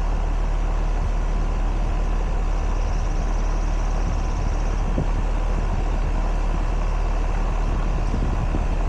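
Air-conditioning condensing unit running steadily, a low compressor hum under the whoosh of the condenser fan, while the system is being topped up with refrigerant. A faint click about halfway through.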